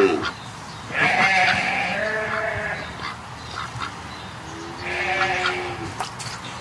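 Two animal calls, the first about a second in lasting about a second and a half, the second about five seconds in and shorter. A sharp click comes near the end.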